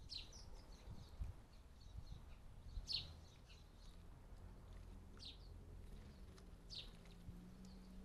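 House sparrows chirping faintly: a handful of short notes that slide down in pitch, spaced a couple of seconds apart, over a low steady hum.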